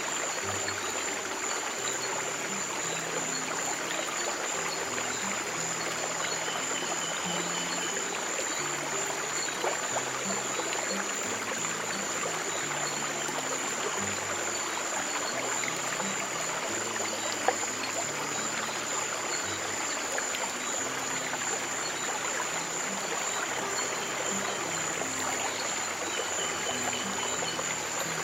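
Steady flow of a stream of running water, with soft, low held music notes changing every second or so underneath.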